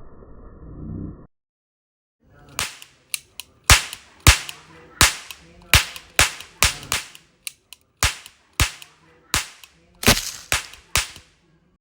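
A long, uneven string of about twenty sharp gunshots, starting a couple of seconds in, with a muffled, dull sound in the first second before them.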